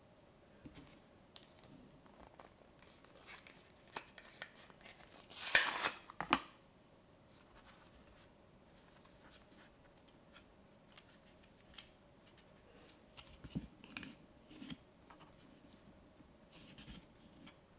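Cardboard and paper being handled up close. A cigarette-box package is opened and a small paperback photobook is slid out, with the loudest scraping rustle about five and a half seconds in. Scattered soft clicks and paper rustles follow as the book's pages are handled and turned.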